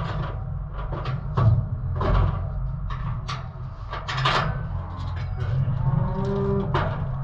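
Calves mooing, with repeated knocks and clanks throughout.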